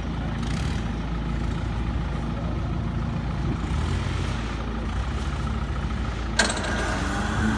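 Off-road vehicle engine idling steadily, with a single sharp knock about six and a half seconds in.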